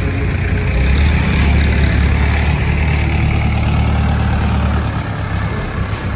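Diesel engine of an Escorts Hydra pick-and-carry crane driving past close by: a steady low rumble that eases a little near the end.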